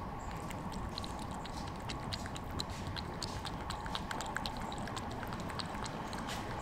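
A cat lapping water from a small glass jar: a quick run of small wet clicks, several a second, as the tongue flicks in and out of the water.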